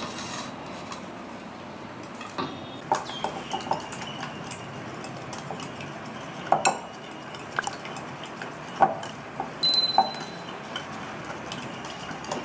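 A spoon clinking and tapping against a bowl at irregular intervals while working salt into cracked raw eggs, with one clink near the end ringing briefly.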